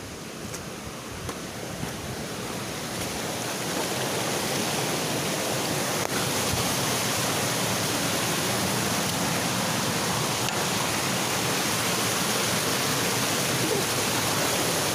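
Running water rushing through and out of a brick culvert into a stony stream bed, getting louder over the first few seconds, then a steady rush.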